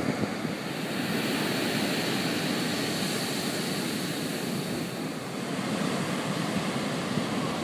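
Surf breaking on a sandy beach: a steady roar of waves that swells for a few seconds and eases a little about five seconds in.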